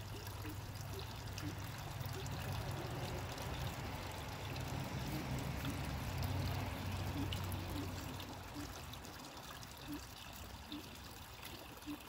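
Small pond waterfall splashing and trickling steadily into the pool. A low rumble under it fades out about eight seconds in.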